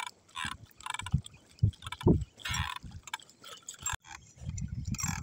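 Small waves slapping and lapping against the side of a small boat in irregular splashes.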